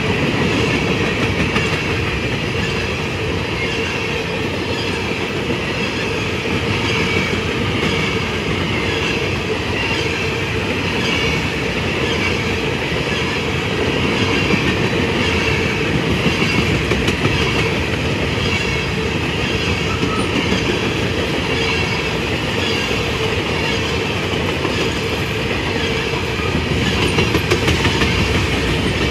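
A long freight train of covered hopper cars rolling steadily past, its steel wheels running on the rails.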